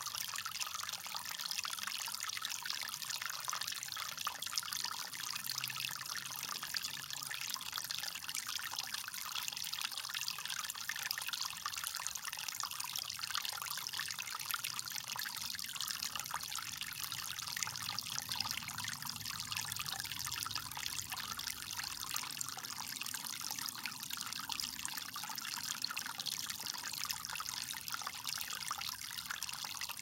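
Water trickling steadily out of the mouth of a black plastic storm drain pipe and running over wet leaves, an even, unbroken splashing hiss.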